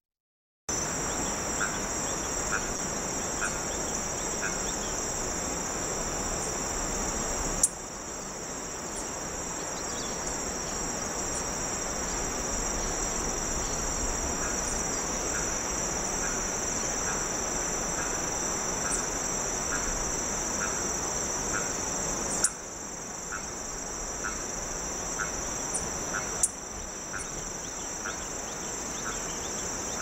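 Steady, high-pitched insect chorus over a constant hiss, with a faint ticking call repeating about one and a half times a second. Brief clicks at about 8, 22 and 26 seconds, each with a sudden drop in the hiss.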